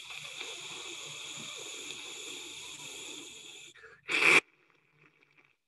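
A man's voice imitating radio static: a long, steady hiss through the mouth, then a short, sharp burst about four seconds in, mimicking a direction-finding receiver as its dish sweeps across a signal.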